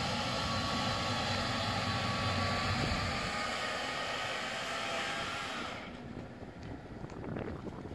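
A machine running steadily, a hum with a faint whine in it, which drops away about six seconds in, leaving faint noise.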